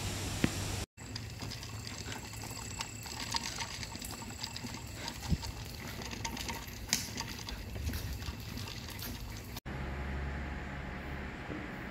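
A single sharp smack of a tennis ball about half a second in. After that, running water trickles and gushes, with many small clicks scattered through it. Near the end the sound switches to the steady low hum of an electric fan.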